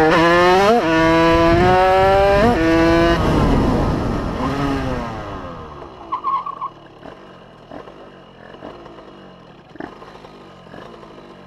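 Derbi Senda 80cc two-stroke engine, fitted with a Metrakit Prorace cylinder kit, revving up through the gears: the pitch climbs and drops at each shift. About three seconds in the throttle closes and the engine winds down to a quiet low run as the bike rolls to a stop. There is a brief squeak about six seconds in.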